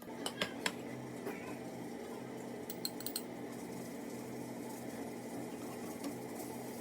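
Kitchen utensils clinking against dishes: a few sharp clinks in the first second and a quick cluster about three seconds in, over a steady background noise.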